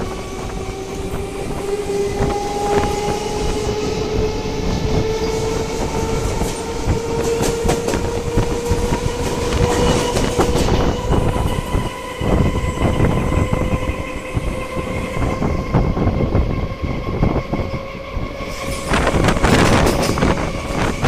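Electric local train (EMU) accelerating, heard from on board: the traction motors' whine rises steadily in pitch while the wheels clack over rail joints and points. Near the end a loud rush of wind buffets the microphone.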